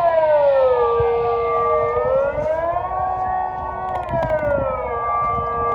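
Kockumation TK-150 electronic siren wailing in slow rising and falling glides that level off briefly at the top and at the bottom: the Swiss general-alarm tone of a siren test.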